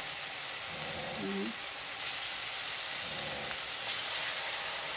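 Raw chicken pieces and chopped onion, garlic, ginger and green chili sizzling steadily in hot cooking oil in a frying pan as more chicken is dropped in.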